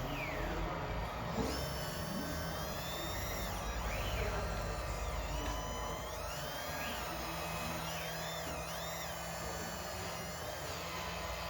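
Small electric motors of radio-controlled model construction machines whining, their pitch rising and falling again and again as the models are driven and worked.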